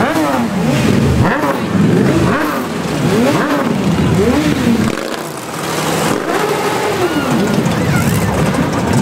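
Motorcycle and motor-scooter engines riding past one after another, each engine note rising and falling in pitch as the riders rev and pass.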